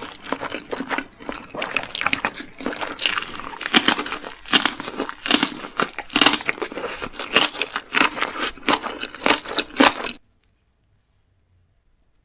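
Close-miked eating sounds: a person biting into and chewing crunchy food, many sharp irregular crunches. The sound cuts off suddenly about ten seconds in.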